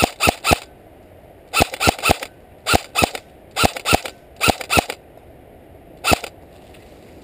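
An airsoft AKS-74 electric rifle firing single shots in quick groups of two or three. It fires about a dozen sharp, ringing shots in all, the last on its own about six seconds in.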